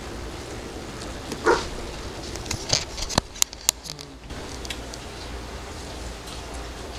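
A dog gives one short bark about a second and a half in, over a steady hiss. A few sharp clicks follow about a second later.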